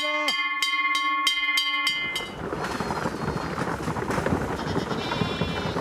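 A bell struck quickly and evenly, about three strikes a second, ringing on, then cut off about two seconds in by the dense clatter and rush of a herd of black goats running past.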